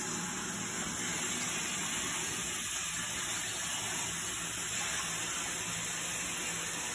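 Bathroom sink faucet running steadily, its stream of water pouring into the basin.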